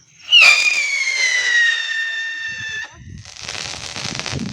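Whistling firework: a sudden shrill whistle that slowly falls in pitch for about two and a half seconds, followed by a rapid crackling of small pops.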